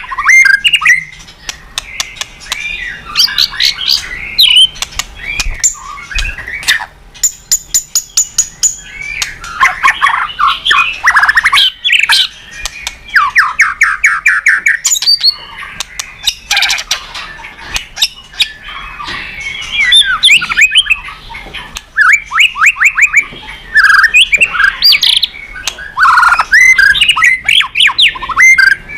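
White-rumped shama (murai batu) singing a long, varied song: rapid runs of repeated notes, sweeping whistles, harsh squawks and sharp clicks following one another with barely a pause. The song is filled with phrases copied from other birds.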